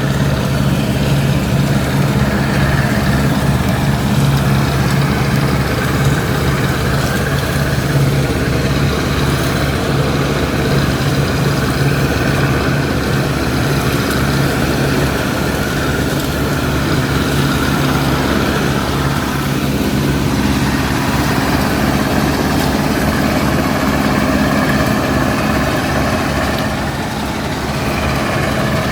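Vintage 1967 Massey Ferguson 410 combine harvester running steadily while harvesting wheat. Its engine note holds even and dips slightly near the end.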